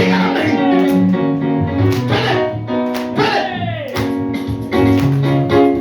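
Live church worship music: keyboard and guitar playing the accompaniment to a Swahili worship chorus, with held notes and a couple of falling pitch slides.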